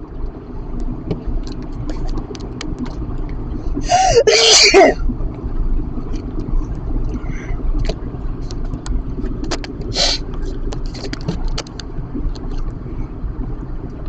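A man's allergic sneeze about four seconds in, a short intake and then a loud breathy burst with his voice in it, over the steady low rumble of road noise inside a moving car. A second, shorter breathy burst comes about ten seconds in, with light irregular ticks scattered throughout.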